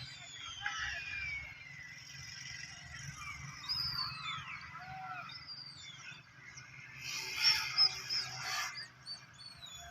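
Birds chirping: a string of short whistled notes that sweep up and down in pitch, busiest and loudest about seven to eight and a half seconds in.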